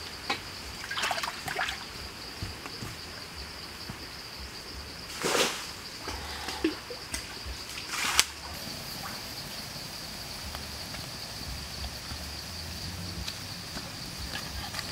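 Outdoor ambience with a steady high-pitched hum throughout. A few short noises break in, the loudest about five seconds in and another just after eight seconds.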